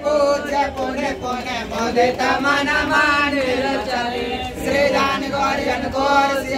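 Voices singing a Hindu devotional chant together, with long, wavering sung notes.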